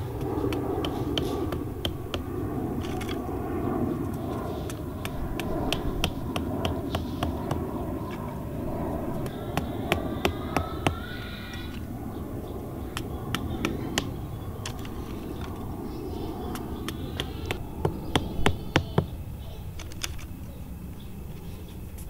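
The back of a cleaver knocking thin bamboo stakes into sandy soil: a run of sharp taps, with clusters of harder strikes about ten seconds in and again near the end.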